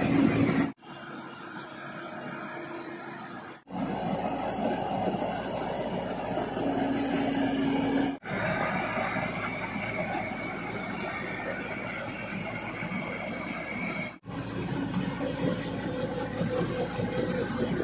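JCB 140 tracked excavator's diesel engine running under work, with a steady high whine through the middle stretch. The sound drops out briefly three times where separate clips are joined, and the first stretch is quieter than the rest.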